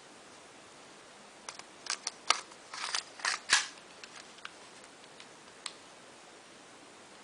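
Sharp mechanical clicks and short clacks of a full-metal airsoft pistol being handled, bunched together about a second and a half in and ending a little past three and a half seconds, followed by a few scattered clicks.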